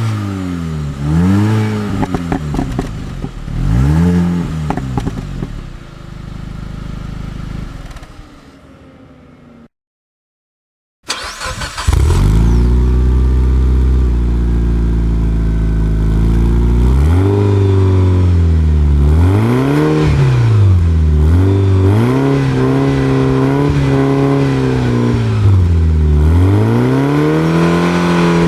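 A Mini Cooper S engine is revved in several quick blips and then dies away. After a short silence about ten seconds in, a Mitsubishi Lancer's engine starts with a loud burst, settles into a steady idle, and from about halfway through is revved up and down repeatedly.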